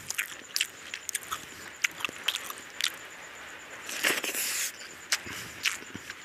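A person eating rice and curry by hand: irregular wet clicks and smacks of chewing and of fingers working the food, with a louder, longer smacking noise about four seconds in as a handful goes into the mouth.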